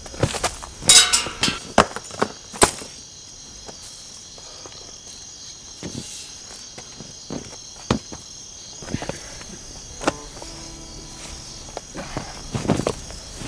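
Crickets chirping steadily in a high, even hiss, with scattered sharp knocks and clicks over it, the loudest and most frequent in the first three seconds and again near the end.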